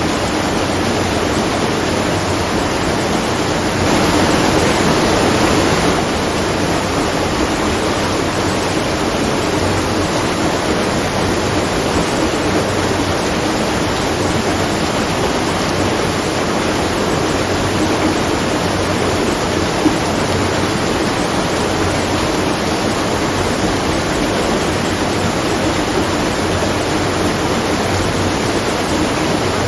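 Water from a watermill rushing and splashing in a steady, dense wash, swelling slightly for a couple of seconds about four seconds in.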